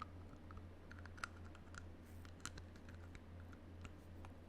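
Teeth biting and clicking on the plastic end of a toothbrush: a scatter of small, faint, irregular clicks.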